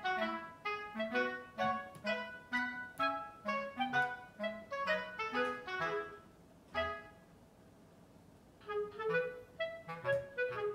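Light instrumental background music, a melody of short notes that breaks off for about two seconds past the middle, then comes back.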